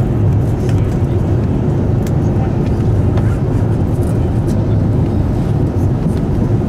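Airbus A350-900 cabin noise: a loud, steady low rumble of the engines and airflow, with a few faint clicks of cabin rattle.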